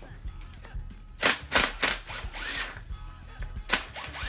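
Yellow handheld cordless power tool running in two short bursts to loosen the connecting-rod cap bolts on a V8 block: a cluster of quick hits about a second in and a shorter burst near the end.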